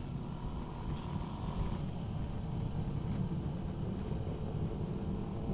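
Steady low wind and road rumble from a Yamaha NMAX 155 scooter cruising at an even speed, with its engine running steadily underneath.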